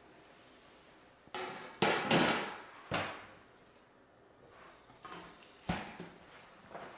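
Handling noise from a Jonsbo N2 NAS case and its mesh filter panel: a scraping clatter about a second and a half in, a sharp knock about three seconds in, and another sharp knock near six seconds, with lighter taps between.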